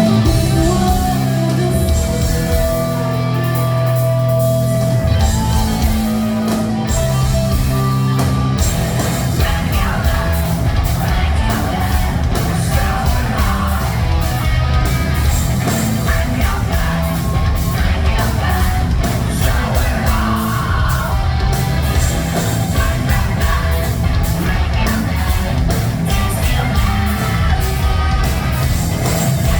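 Live post-hardcore rock band playing loudly: held, sustained chords for the first eight seconds or so, then drums come in and the full band plays fast and heavy with sung and shouted vocals.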